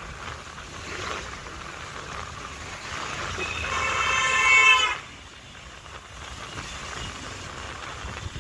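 Road traffic rumble, with a vehicle horn sounding one long honk. The honk starts a little past three seconds in, grows louder, and cuts off sharply about five seconds in.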